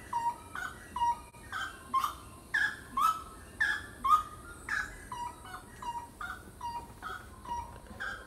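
Birds calling from the jungle: short calls that drop in pitch, repeated about twice a second, some overlapping one another.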